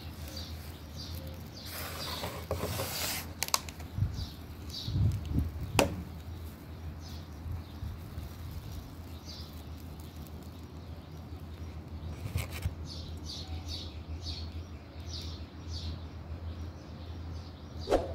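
Handling of a curled-up hedgehog in bare hands: a rustle and a few sharp clicks over a steady low hum, with faint short high chirps scattered throughout.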